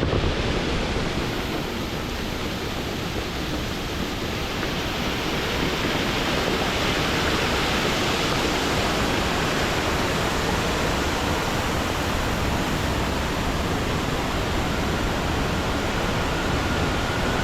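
Steady rushing noise of Diyaluma Falls, a 220 m waterfall, running in heavy flow after rain. A faint steady tone comes in near the end.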